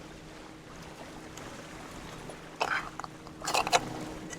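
Cooking utensils clattering against a soup pot on a grill, in a few sharp knocks about two and a half seconds in and a quick cluster a second later, over a steady low hum.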